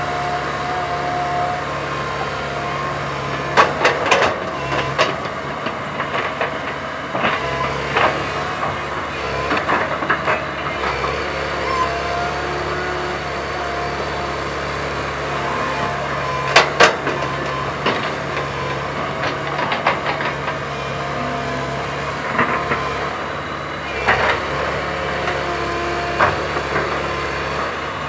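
Komatsu PC130 hydraulic excavator running steadily under work, its diesel engine giving a constant hum with a held whine. Sharp metallic clanks and knocks break in now and then, in a cluster a few seconds in and loudest about two-thirds of the way through.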